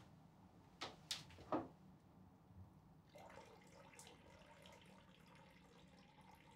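A person urinating into a toilet bowl, faint: a few separate drips about a second in, then a quiet steady trickle from about three seconds in, over a low room hum.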